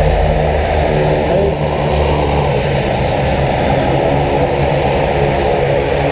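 Propeller engine of a skydiving jump plane running steadily on the ground, an even drone.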